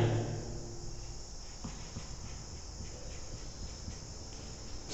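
Faint steady background with insects chirping continuously at a high pitch.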